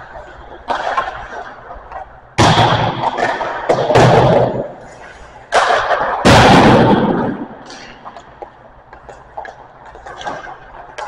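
Hockey pucks hitting the rink boards and glass: four loud, sharp impacts, each ringing on for about a second in the echoing ice rink, with fainter knocks between them.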